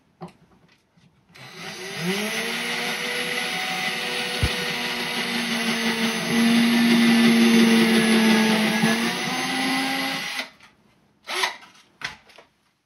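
Cordless drill boring 3/32-inch pilot holes for screws into wood. It spins up about a second in, runs steadily for about nine seconds, grows louder in the middle, then stops.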